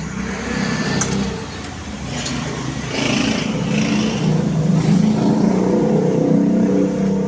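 A motor running with a steady pitched hum that grows louder about three seconds in, with a few light clicks.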